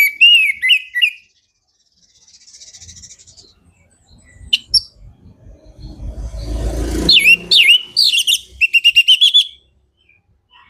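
Orange-headed thrush singing in loud bursts of clear whistled phrases that bend up and down in pitch. The last phrase ends in a fast run of repeated notes. Just before it, a brief rushing noise.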